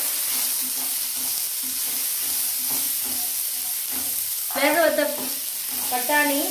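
Diced carrots and green beans sizzling in hot oil in a nonstick kadai while a spatula stirs them. The steady hiss of frying is broken by the light scrape of the spatula against the pan.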